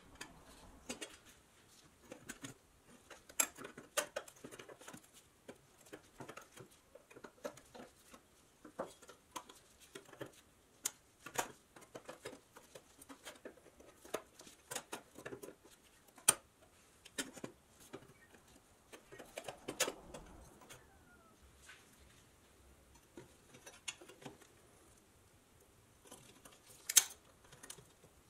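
Steel pliers and a thin screwdriver working at the tabs of a pressed-tin toy car body. Irregular clicks, taps and light scrapes of the tools on thin sheet metal, with a few sharper clicks standing out.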